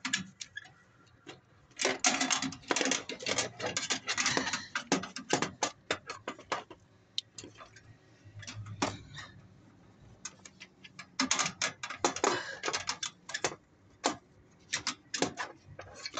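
Rapid clicking and rattling from hand work on car parts, in three spells with quieter gaps between them.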